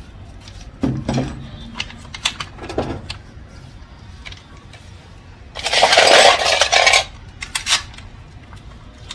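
Metal hand tools and bolts clinking against each other and the engine: scattered sharp clinks, then a loud clatter of metal lasting over a second about two-thirds of the way through.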